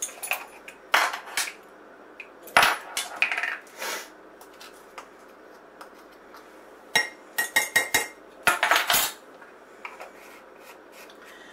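Kitchen utensils clinking and tapping, most likely measuring spoons knocking on containers and against each other while ingredients are spooned out. Scattered sharp clicks and knocks come in a cluster about three seconds in and another around seven to nine seconds.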